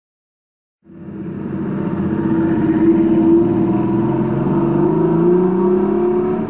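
A motor vehicle engine running, its pitch rising slowly as it revs up, starting abruptly about a second in.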